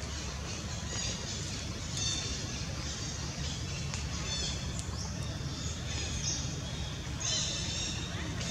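Birds chirping in short repeated high calls over a steady low background rumble.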